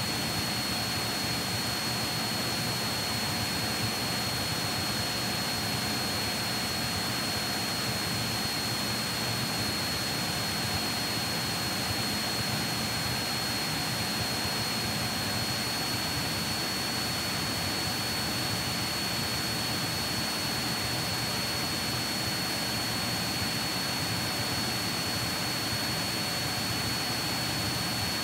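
Steady drone of a Cessna 172 Skyhawk's piston engine and propeller in level cruise, with the rush of airflow and a thin, steady high-pitched tone over it.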